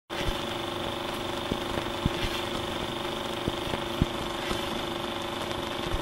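Steady mechanical running noise with a constant hum, broken by several short dull thumps, two pairs of them about half a second apart.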